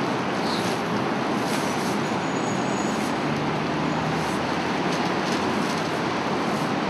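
A steady, unbroken background noise of street traffic, with no distinct events.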